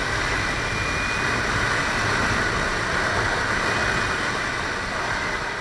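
Kawasaki Ninja 300 parallel-twin engine running at steady road speed, with a steady rush of wind and road noise around it.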